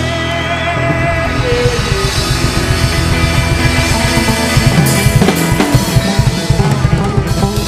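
Loud rock music with a drum kit, bass and guitar, no singing; the drumming gets busier in the second half.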